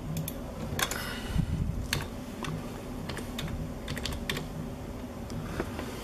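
Scattered light clicks and crinkles of a clear plastic sticker sheet being handled and shifted by hand.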